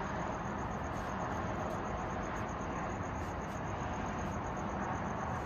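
Steady night ambience: a low, even hum of distant traffic, with a cricket chirping in a fast, even pulse.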